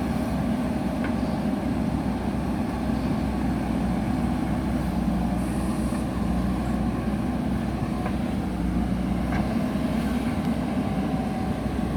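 JCB backhoe loader's diesel engine running steadily, a low, even drone with a few faint clicks.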